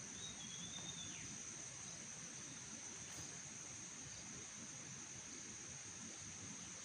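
Steady high-pitched insect trill, typical of crickets, with one short bird call near the start that holds its pitch and then drops away.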